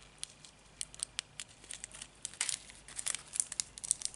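Small plastic bags of diamond-painting resin drills crinkling as they are handled: a run of sharp crackles, sparse at first and busier from about a second in.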